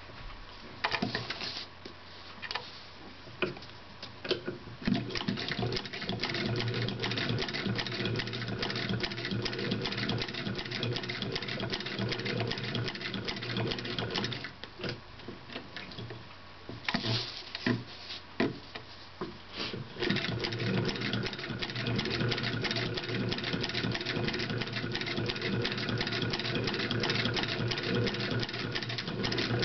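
Antique Baer & Rempel Phoenix sewing machine stitching cloth, its handwheel turned by hand: a few separate knocks at first, then a fast, even clatter of stitches. The clatter breaks off for a few seconds with scattered clicks past the middle, then runs steadily again.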